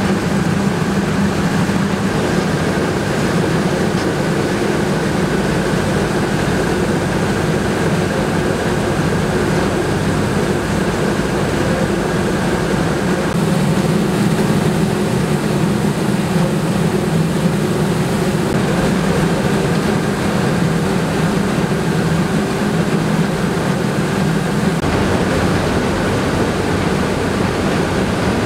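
Rice mill machinery running with a steady, loud mechanical drone and hum, with a few steady tones that shift slightly partway through.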